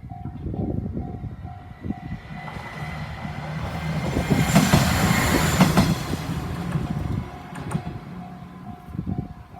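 Japanese level crossing's warning bell ringing in a steady repeating beat while a train of the Tenryū Hamanako Railway, a diesel line, runs through the crossing. The train swells up and is loudest about four to six seconds in, with wheels clacking over the rail joints, then fades as the bell carries on.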